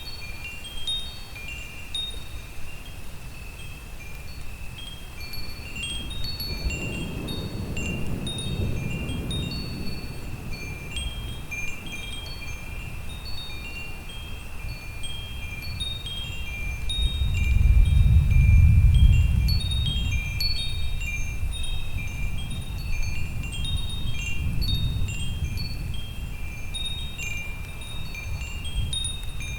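Wind chimes ringing continuously in many short, high, overlapping notes over a low storm background. Thunder rolls in twice as low rumbles: a soft roll about a quarter of the way in, and a louder one just past the middle that is the loudest sound here.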